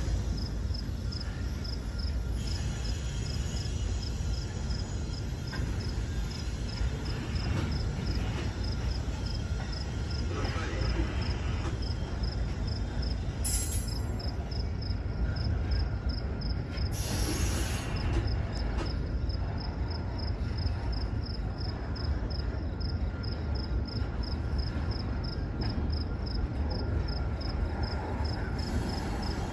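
Double-stack intermodal container cars of a freight train rolling past, a steady low rumble of wheels on rail. A regular high chirp repeats about three times a second throughout, and there are two brief hissing bursts about 13 and 17 seconds in.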